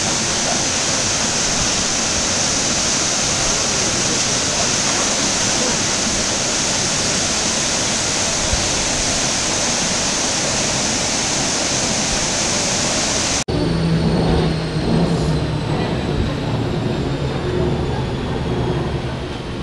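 Waterfall plunging down a rock face, a loud steady rush of falling water. About 13 seconds in it cuts off abruptly to a funicular car on its rails, a low steady hum with a faint high whine slowly falling in pitch.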